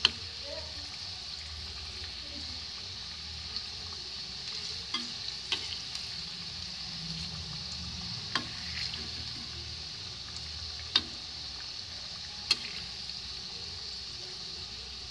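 Grated-cauliflower kofta balls deep-frying in hot oil in a kadhai on a medium flame, a steady sizzle. A slotted spoon turning them gives about six short sharp clicks against the pan.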